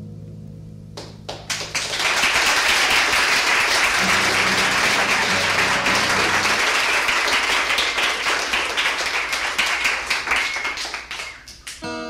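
Audience applauding after a song: a few claps about a second in swell into dense applause that fades away near the end.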